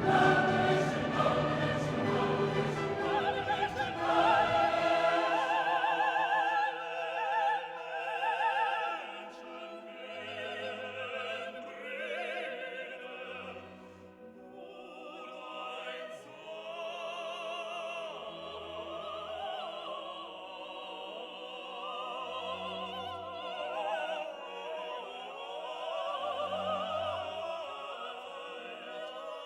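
Background music: classical vocal music, a solo voice singing with vibrato over orchestral accompaniment, fuller in the first few seconds.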